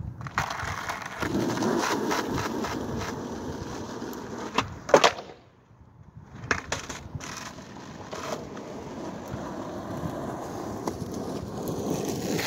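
Skateboard wheels rolling on asphalt. About five seconds in, a backside heelflip attempt brings a sharp pop and the loud clack of the board striking the pavement. After a brief lull, a few clicks come and the wheels roll again.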